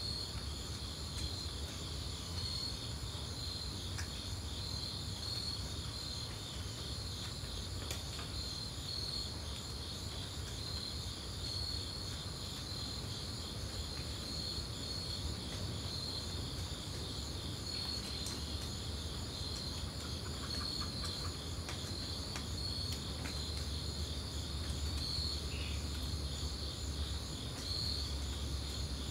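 Steady outdoor chorus of night insects, a high trill pulsing many times a second without a break, over a low steady rumble.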